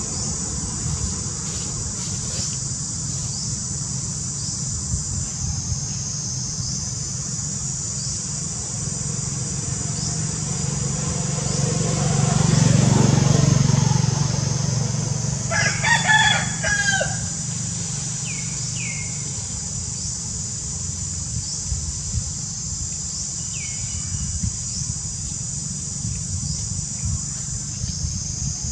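A rooster crows once, about halfway through, over a steady high insect drone and a low rumble that swells and fades just before the crow.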